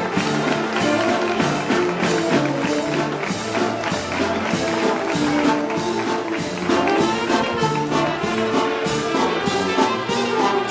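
Brass band music: held brass notes over a steady, even percussion beat.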